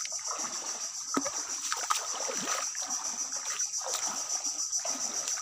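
Booted feet wading through shallow, muddy creek water: a run of irregular sloshing, splashing steps, about one or two a second.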